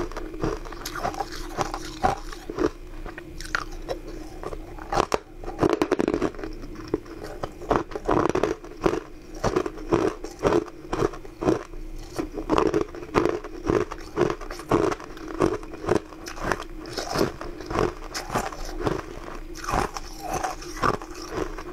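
Close-miked biting and chewing of hard, crunchy pink crystal sweets: a run of sharp crunches, about two a second for much of the time, over a steady low hum.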